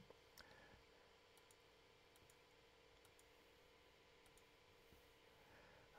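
Near silence: a faint steady room hum, with a few soft ticks of a felt-tip marker touching paper.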